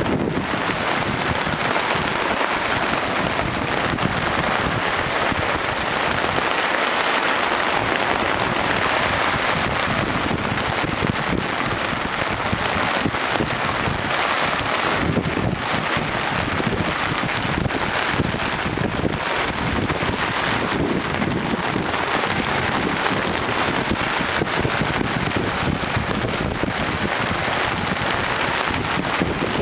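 Storm rain falling steadily with wind, a constant dense hiss with no let-up.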